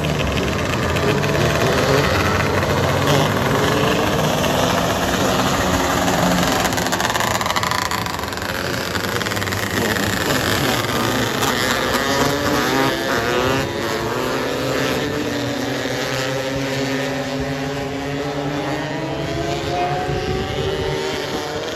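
Several 270 micro sprint car engines running laps together, overlapping, each rising and falling in pitch as the cars accelerate down the straights and lift for the turns.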